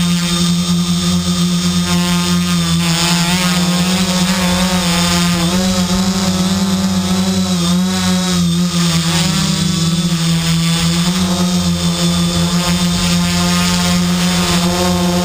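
Quadcopter's electric motors and propellers running in flight, a steady buzzing hum picked up close by the onboard camera, its pitch wavering up and down as the flight controller varies motor speed.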